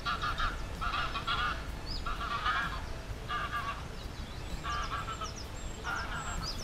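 Large waterfowl honking as they fly over, in about six short bursts roughly a second apart. Faint high chirps of small songbirds sound above them.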